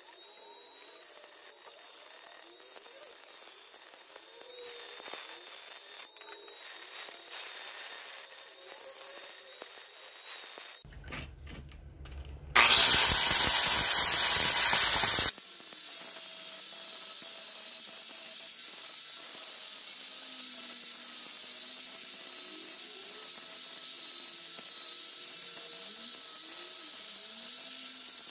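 Power tools working a clam shell: a rotary tool's burr carving at first, then a DeWalt angle grinder that starts with a rising whine and grinds loudly for about three seconds before dropping to a quieter, steady running sound.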